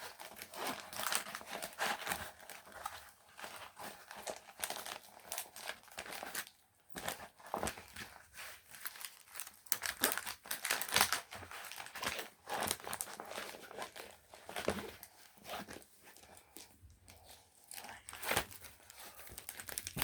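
Rolled diamond painting canvas being unrolled and handled, its thick plastic cover crinkling and crackling unevenly, with a brief pause about seven seconds in.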